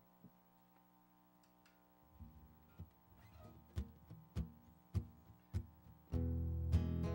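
Acoustic guitar starting a song intro: a short quiet pause, then soft notes with a steady tap about every half second, then full strumming breaks in about six seconds in.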